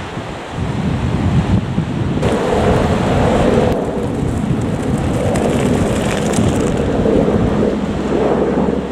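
Heavy wind rumbling on the microphone, with the low rumble of an approaching Class 43 HST diesel power car under it from about two seconds in.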